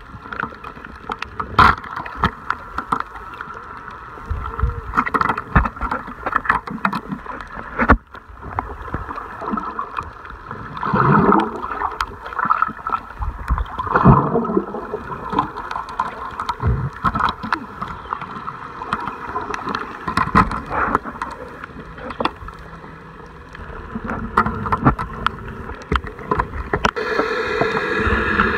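Water sloshing and gurgling around the camera of someone snorkeling, with many irregular clicks and knocks and two longer bubbling rushes that fall in pitch, about 11 and 14 seconds in. A boat motor's steady hum comes in near the end.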